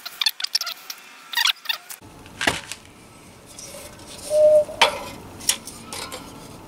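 Sharp metal clanks and knocks from a rusty wrought-iron clock frame being handled, with a short ringing tone about halfway through.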